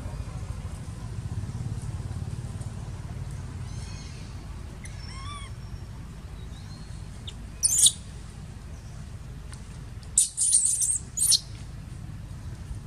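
Macaques calling: a few faint arching squeaks near the middle, then a short shrill scream and, near the end, a louder run of shrill screams, over a steady low rumble.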